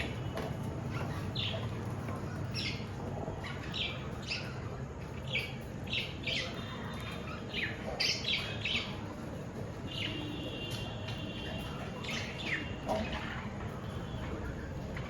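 Budgerigars chirping and squawking in short, sharp calls every half second or so, with a few longer warbled notes about two-thirds of the way through, over a steady low hum.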